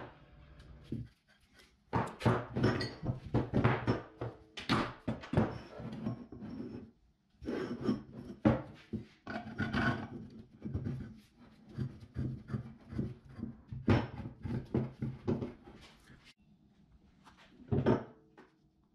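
Steel pipes and laminated plywood vise parts being handled and fitted together: a run of knocks, clacks and rubbing with some ringing, a short lull about a second in and one last clack near the end.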